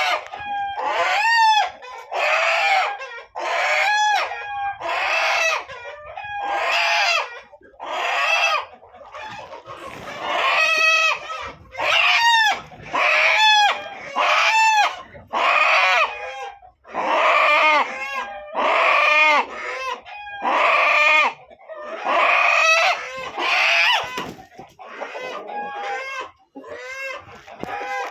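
A flock of desi chickens calling loudly, one call after another about once a second, with several birds overlapping.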